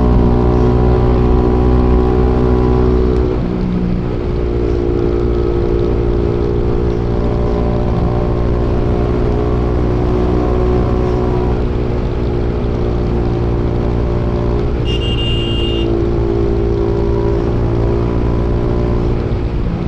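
Bajaj Pulsar NS200's single-cylinder engine running through an aftermarket Akrapovic exhaust as the bike is ridden, at a steady note that drops slightly about three seconds in. A brief high beep sounds about fifteen seconds in.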